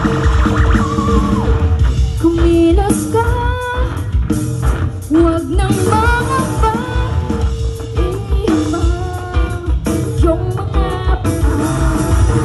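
Live rock band: a woman singing lead over electric guitars and drums, played through the stage sound system. The singing comes in about two seconds in.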